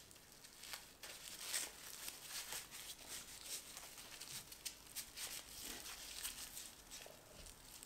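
Paper tea filter bag filled with loose tea being twisted and knotted by hand: faint, irregular crinkling of the paper.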